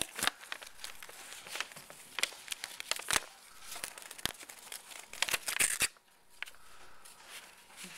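Pet rabbit tearing and crinkling a sheet of white paper with its teeth: a run of sharp rips and crackles that quiets about six seconds in.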